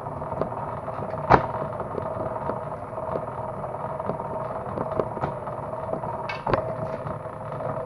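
Homemade cable stripping machine running with a steady hum and many small clicks as cable goes through it. One sharp knock comes just over a second in and another about six and a half seconds in.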